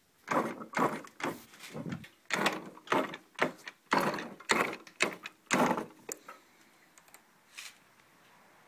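Yamaha DT 80 kickstarter being worked repeatedly, each stroke giving a mechanical clack or ratcheting noise, about two strokes a second for some six seconds before stopping. The engine does not run. The owner finds the noise odd and asks whether it is normal.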